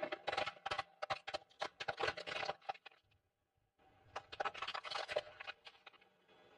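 Crisp crunching and crackling, in two bursts of rapid snaps with a pause of about a second between them.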